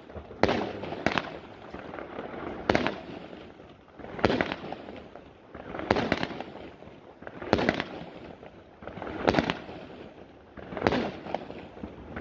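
Aerial fireworks bursting overhead: a steady series of loud bangs about every one and a half seconds, each trailing off into crackling.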